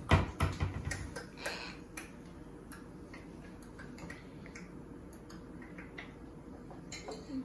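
A knock of hard objects, followed by a quick run of light clicks and taps over the first second and a half, then scattered faint ticks, as small hard things are handled on a table.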